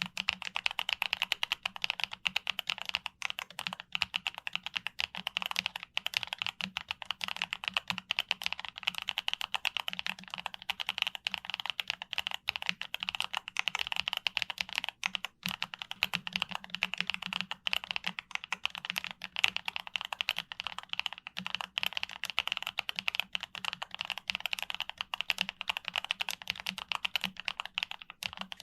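Continuous fast typing on a YUNZII B75 Pro mechanical keyboard: many keystrokes a second with no real pauses.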